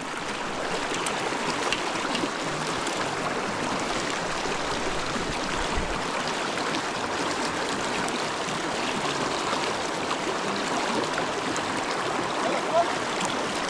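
Pecos River water flowing, a steady, even stream noise.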